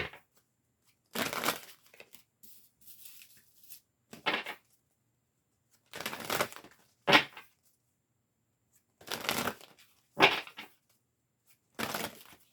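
Tarot cards being shuffled by hand in short bursts, about eight of them with pauses in between.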